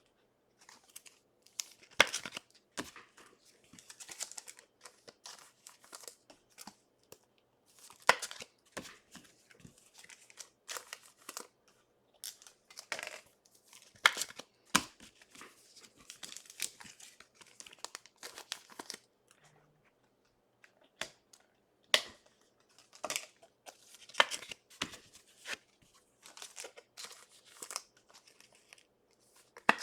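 Trading cards and their plastic wrappers being handled: short, irregular bursts of crinkling and rustling, with a few sharper crackles.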